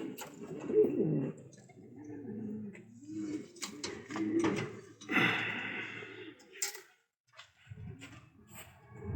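Several domestic pigeons cooing in a loft, with low, rolling, overlapping coos, scattered light taps and a brief rustle around five seconds in. The cooing drops away for a moment about seven seconds in, then picks up again.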